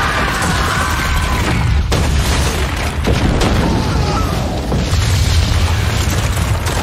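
Dramatised film sound of a huge wildfire explosion blowing apart a stone building: a deep, continuous rumbling blast with a couple of sharp crashes of debris about two and three seconds in.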